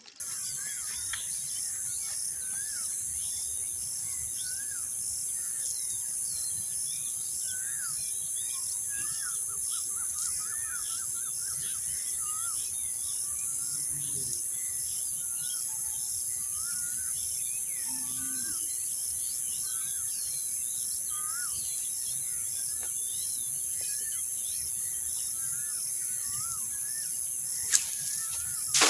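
Birds chirping now and then over a steady high-pitched buzz, with one sharp click near the end.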